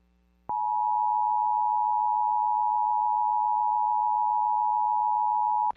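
Emergency Alert System attention signal: a steady electronic tone just under 1 kHz, consistent with the EAS two-tone (853 and 960 Hz) signal. It starts about half a second in, holds for about five seconds and cuts off sharply, announcing a new alert message.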